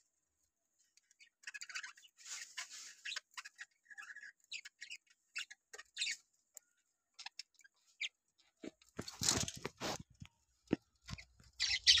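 Budgerigars chirping in short, scattered high-pitched bursts mixed with small clicks, with a louder clatter of knocks about nine seconds in.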